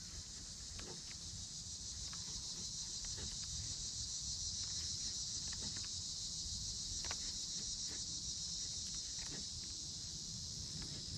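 Steady, high-pitched chorus of insects, with a few faint ticks scattered through it.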